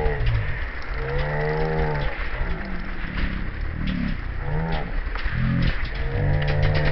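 Trials motorcycle engine blipped in a series of short revs, each rising and falling in pitch, over a steady low rumble with scattered clicks and knocks.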